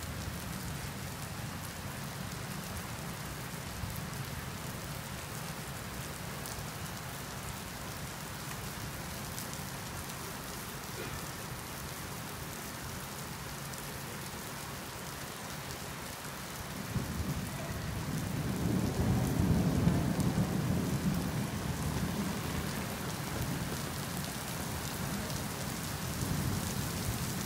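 Steady rain falling on a street and pavement. About two-thirds of the way in, a low rumble swells up over a few seconds, then slowly eases but does not die away.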